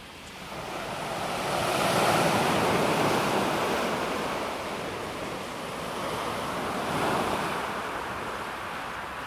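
Calm sea waves washing onto a pebble beach: one wave swells in about a second in and slowly ebbs, and a smaller second wash comes about seven seconds in.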